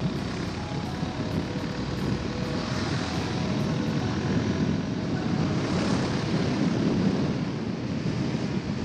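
Wind rushing over the microphone of a Honda CB 350RS motorcycle riding at speed, with the bike's engine droning steadily underneath.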